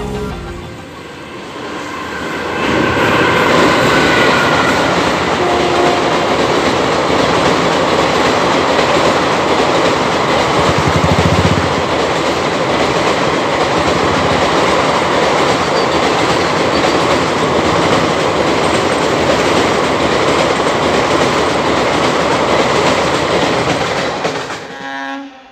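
Express train hauled by an electric locomotive crossing a steel girder bridge at speed: a loud steady rush with wheels clattering over the rail joints. It builds about two seconds in and drops away suddenly near the end.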